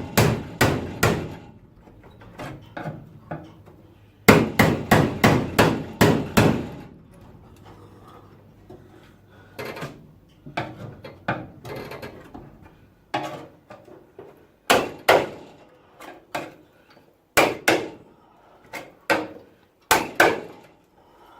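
Hammer blows on the Cortina's steel bodywork, a few quick strikes at the start and a fast volley of about seven around four seconds in, then single hard strikes every second or so.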